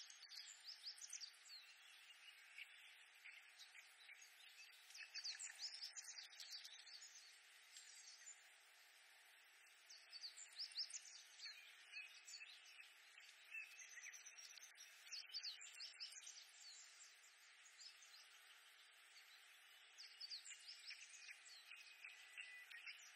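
Reed warblers singing in bouts of quick, repeated high notes, a new bout every few seconds, faint over a steady background hiss.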